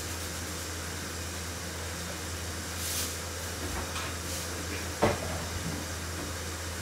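Overhead kitchen cupboard being handled as a bottle is put away: a short swish about three seconds in, light clicks, then a sharp knock about five seconds in. A steady low hiss and hum run underneath.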